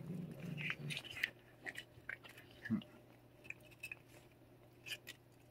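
Cat licking and eating a lickable treat squeezed from a hand-held tube: small, scattered wet clicks and smacks of its tongue and mouth, with one short low sound nearly three seconds in.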